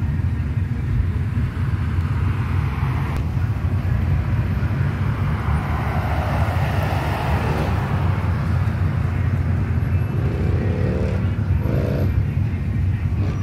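Steady low engine and exhaust rumble of a slow line of cruising cars and pickups, with a swell of passing-vehicle noise in the middle and short rising engine notes near the end.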